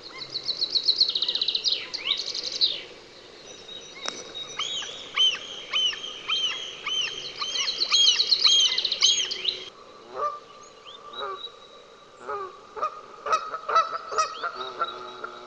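A run of wild bird calls. A chaffinch sings its fast, falling trill and end flourish for about the first three seconds. Then a common gull gives a rapid series of high, repeated alarm calls for several seconds, and from about ten seconds in Canada geese honk repeatedly.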